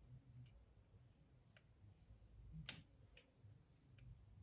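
Faint, scattered plastic clicks and taps as model-train packaging is handled, about five in all, the loudest a little under three seconds in, over a low room hum.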